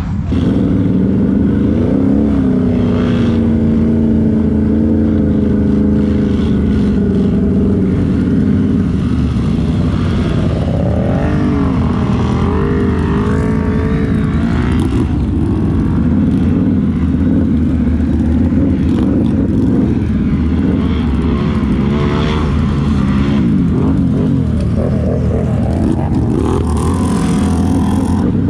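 Can-Am ATV engine revving hard and continuously, its pitch rising and falling over and over.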